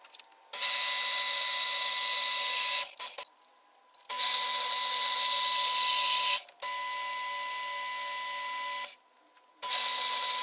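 Metal lathe running while turning a trapezoidal-threaded lead screw: a steady whine over a hiss. The sound comes in four stretches that each start and stop abruptly, with short gaps between, and the third stretch is quieter than the others.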